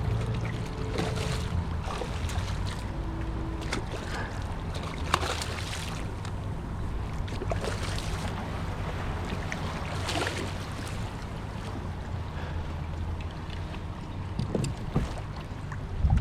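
Wind on the microphone and water lapping at a kayak's hull, with scattered small knocks and splashes.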